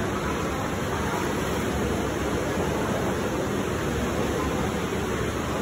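Steady rush of splashing, churning water in an open aquarium tank.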